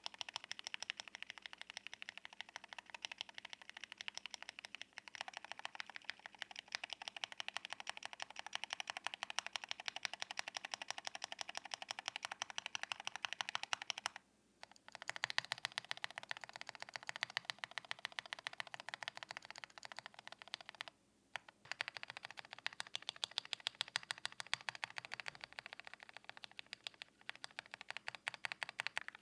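Rapid typing on a Mode Eighty hot-swap mechanical keyboard with stock Mode Reflex linear switches, a dense run of key clacks. The typing stops twice, briefly, about halfway and about three quarters of the way in, where the recording cuts from one mounting plate to another (FR4, POM, brass). After the first cut the keystrokes carry a little more low end.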